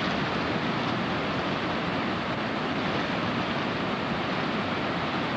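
Steady, even rushing of ocean surf and wind.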